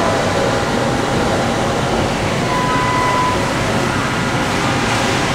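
Komo VMC 40/240 traveling-column CNC machining center running with flood coolant spraying inside its enclosure: a loud, steady mix of machine noise and coolant spray, with faint thin tones on top.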